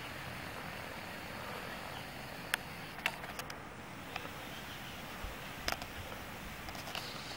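Steady outdoor background hiss with a few short, sharp clicks in the middle.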